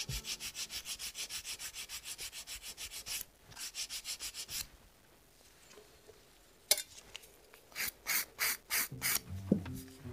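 Hand nail file, a curved 180-grit board, rasping back and forth across a hard cured acrylic-and-gel nail to straighten its sides. It goes in a fast even run of about six strokes a second. After a short second run and a couple of seconds' pause come a handful of slower, louder single strokes.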